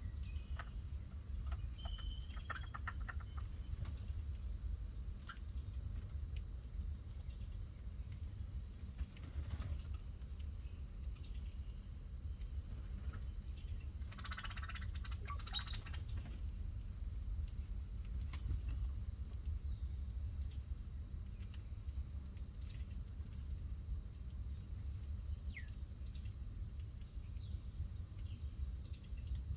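Backyard ambience: a steady, high-pitched insect drone with a low rumble underneath. A few short bird chirps come about two seconds in, and a louder bird call with rising chirps comes about halfway through.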